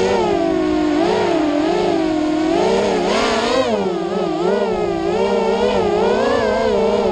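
Racing quadcopter's electric motors and propellers buzzing, the pitch swooping up and down constantly with rapid throttle changes.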